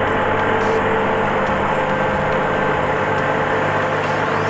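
Compact farm tractor engine running steadily at a constant speed as the tractor drives forward.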